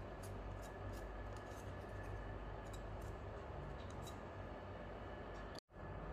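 Small handling sounds from cleaning a clear plastic part of a note acceptor with a wet wipe: faint rubbing and light plastic clicks over a steady background hum. The sound cuts out briefly near the end.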